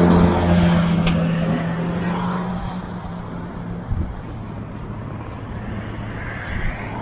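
A motor vehicle passing close by: its low engine hum is loud at first and fades away over the next few seconds, leaving steady background traffic noise. A short low thump comes about four seconds in.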